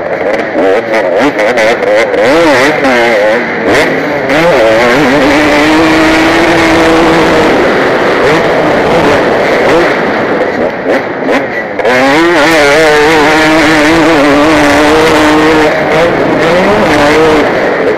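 KTM 250 motocross bike's engine at race pace, heard from the rider's helmet. The revs wander up and down, dip sharply about twelve seconds in, then climb again, as the rider throttles and shifts through corners and straights.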